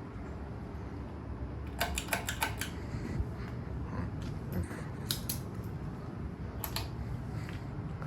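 SMC UF52 ceiling fan running with a steady low hum of motor and moving air. Short runs of light clicks come about two seconds in, again around five seconds and near seven seconds.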